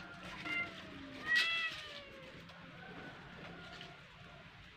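Domestic cats meowing: several short calls, the loudest about a second and a half in.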